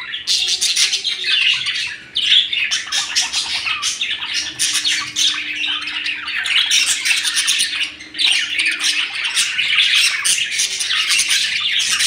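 Several caged budgerigars (budgies) chirping and chattering non-stop in fast, overlapping warbles and squawks, with short lulls about two and eight seconds in.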